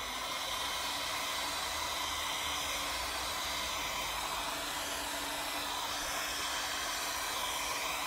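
A 2000-watt electric heat gun blowing steadily: an even rushing hiss with a faint low hum under it, heating an aluminium scooter crankcase half so the chilled crank bearing will drop into its bore.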